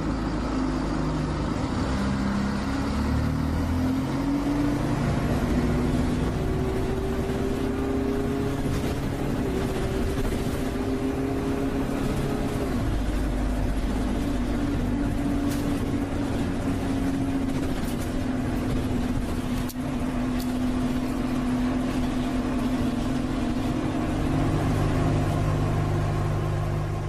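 Road vehicle in motion on a motorway, heard from inside: a steady engine drone with tyre and road noise.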